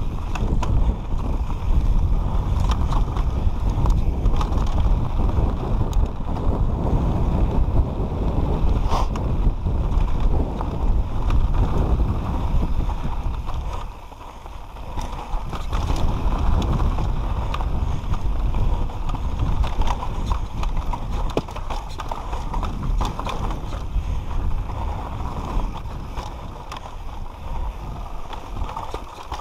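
Downhill mountain bike descending a dirt trail: tyres rolling over dirt and stones, the bike rattling and knocking over bumps, with heavy wind rumble on the camera microphone. The rumble eases briefly about halfway through.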